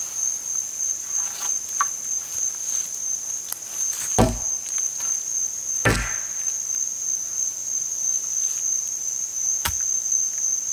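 Rainforest insects droning in one steady high tone, over which a long wooden pole is knocked hard three times, about four, six and nearly ten seconds in, to make noise. The first knock is the loudest.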